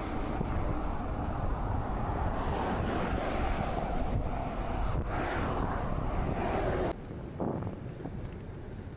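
Wind rushing over an action camera's microphone while riding a road bike, with a car going past. The rushing drops suddenly to a quieter level about seven seconds in.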